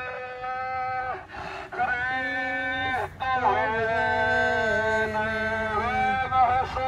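A man's voice singing or chanting long drawn-out notes through a megaphone. The notes are held steady and slide from one pitch to the next, with short breaks about one, three and six seconds in.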